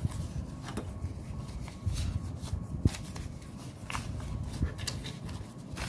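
Paper banknotes rustling and flicking as they are counted out by hand, with scattered short crisp snaps over a low steady rumble.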